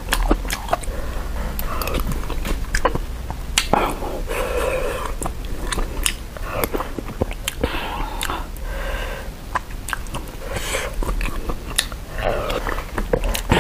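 Close-miked eating: a person chewing and slurping spicy malatang broth and quail eggs from a spoon, with frequent sharp mouth smacks and clicks throughout.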